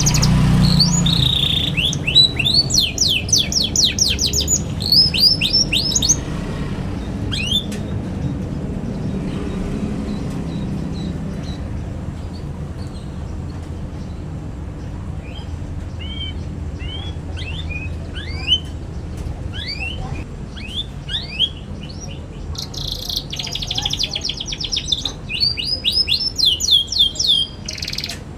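Young domestic canary twittering: fast runs of repeated high chirps, thinning to scattered single chirps in the middle and speeding up again near the end, over a steady low hum.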